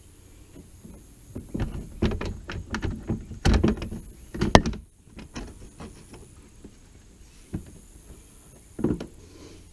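Irregular clicks and knocks of hand tools and hardware while a mud flap is fitted with its factory bolts. There are two sharp thunks around the middle and another near the end.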